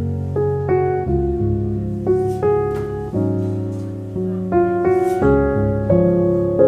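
Slow piano music: chords and a simple melody, a new note or chord about every half second, each fading away.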